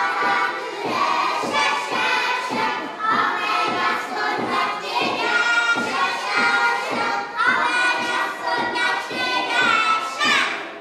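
A group of children singing a folk song together in chorus, with regular thumps about twice a second. The singing stops at the very end.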